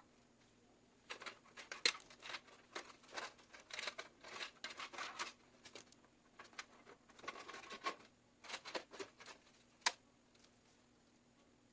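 Irregular clicks, taps and rustling of hands handling PC components and cables, with one sharp click near the end, over a faint steady hum.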